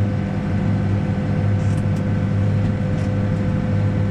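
Backhoe's diesel engine running steadily at raised speed, with a steady high whine over the low engine note.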